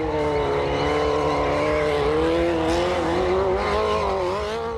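Stunt motorcycle engine held at high revs, its pitch wavering slightly up and down, easing off a little near the end.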